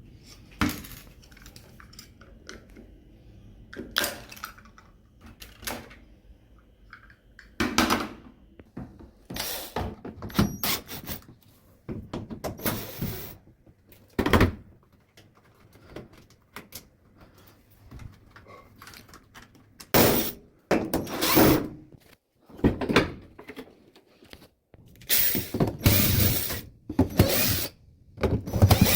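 Irregular clunks, knocks and scraping of plastic and metal parts being handled and worked with hand tools while an LG top-loading washing machine is taken apart.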